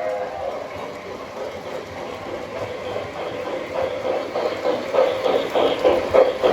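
O gauge model passenger train running on the layout: its whistle dies away at the start, then a rhythmic beat of about three or four strokes a second grows louder as the train nears.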